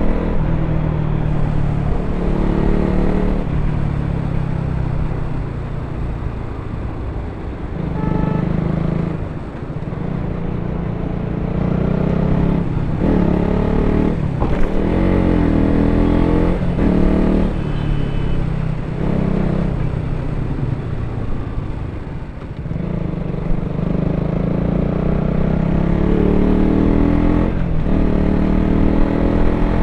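KTM RC 200's single-cylinder four-stroke engine through its stock exhaust while riding: the note rises with the throttle, drops off sharply several times through the middle and picks up again, and climbs in pitch near the end.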